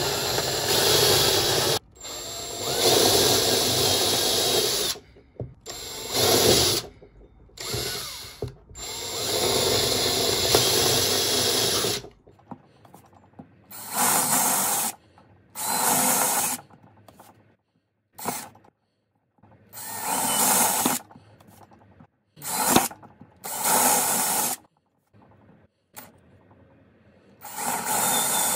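Cordless drill with a twist bit boring a series of small holes through a wooden board, running in repeated bursts that stop and start as the bit is moved from hole to hole. The bursts are longer at first and shorter and choppier after about twelve seconds.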